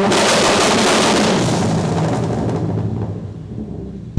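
Subaru WRX exhaust on launch control, firing a rapid, dense string of pops and bangs that starts abruptly and fades out over about three seconds.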